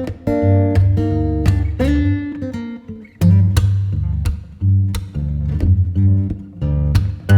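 Background music: acoustic guitar plucked and strummed over a steady bass line.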